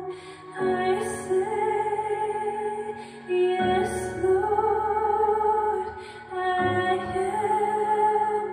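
Slow, gentle music: a woman singing a melody over sustained chords that change about every three seconds.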